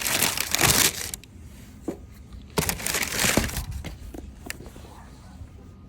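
Packaging rustling and crinkling as sneakers are handled out of their box, in two bursts of about a second each, one at the start and one about two and a half seconds in, with a few light knocks between.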